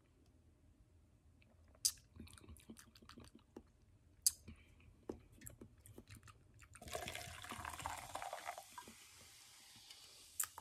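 Mango hard seltzer poured from a can into a plastic michelada cup, a fizzing pour about seven seconds in that lasts a couple of seconds and then thins out. Before it come a few sharp clicks and taps from the can and cup being handled.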